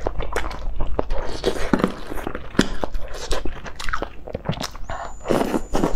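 Close-miked eating sounds: biting and chewing mouthfuls of food from a spicy broth, with wet mouth smacks coming at an irregular pace.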